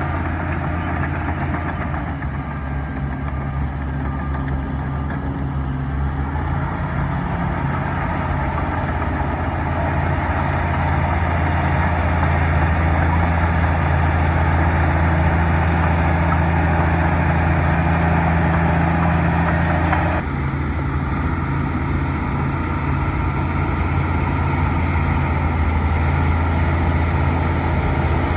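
Bulldozer's diesel engine running steadily, pulling harder and louder from about a quarter of the way in, then easing off abruptly about two-thirds through.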